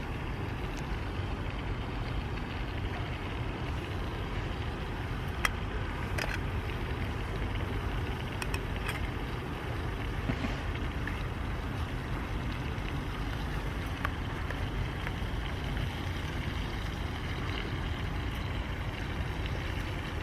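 Beef strips, peppers and rice frying in a pan over a methylated-spirit burner: a steady sizzle with a few faint pops, under a low outdoor rumble.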